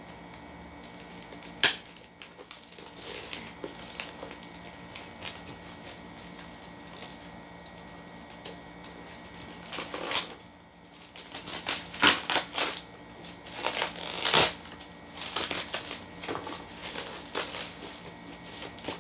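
Parcel wrapping being torn and peeled open by hand, paper and tape crackling and crinkling with plastic wrap. There are scattered sharp crackles, a loud one about two seconds in, and much busier handling from about ten seconds on.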